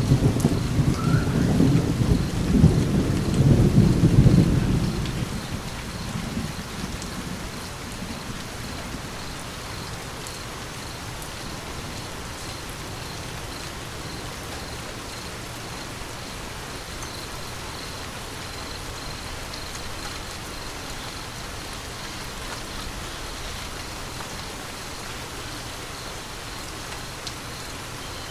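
Steady rain falling with a long roll of thunder at the start that rumbles for about five seconds and fades away, leaving the even hiss of rain.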